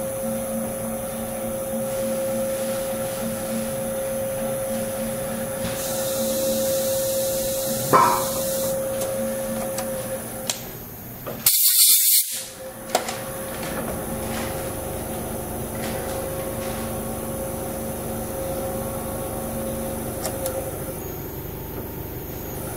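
Seat-and-guide machine running with a steady hum while stud holes in a Fiat 124 cylinder head are tapped. About halfway through comes a short, loud hiss of compressed air blown at the head from an air hose.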